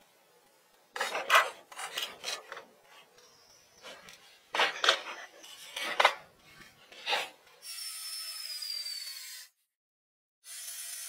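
Wooden pallets scraped and knocked as they are shifted into place over concrete blocks, in several short bursts. Then a cordless drill drives screws into the pallet wood in two runs of about two seconds, its whine falling slightly in pitch.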